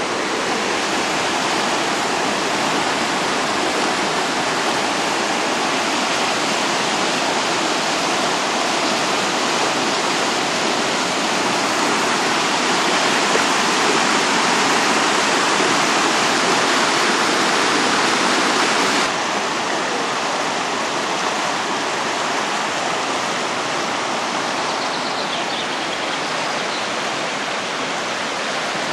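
Fast mountain river rushing over rocks in whitewater: a loud, steady rush. It drops a little in level about two-thirds of the way through.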